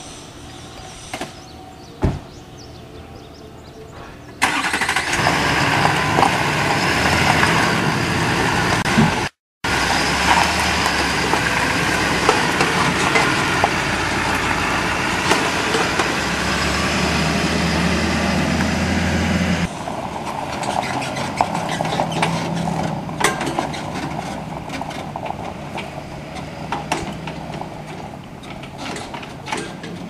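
Pickup truck towing a trailer-mounted towable backhoe: a sharp click about two seconds in, then the engine and tyre noise start suddenly and run loud and steady as the rig drives along the road. About two-thirds through, the noise drops to a lower level with scattered rattles and clicks.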